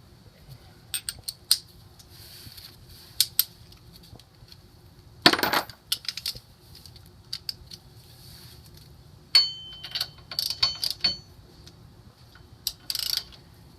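Scattered metal clicks and clinks of a socket wrench working on the bolts of a Toyota Sienna rear wheel hub assembly. A louder metallic rattle comes about five seconds in, and a ringing clink just after nine seconds.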